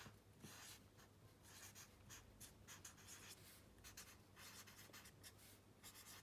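Faint scratching of handwriting: a short sentence being written out in many quick, irregular strokes.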